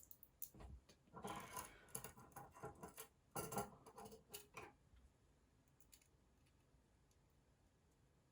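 Small metal construction-set parts being handled and fitted: faint clicks, clinks and scrapes for the first few seconds, then near silence.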